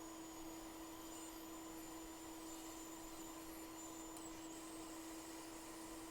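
Faint, steady electrical hum with a thin high whine above it; no scraping or tool strokes stand out.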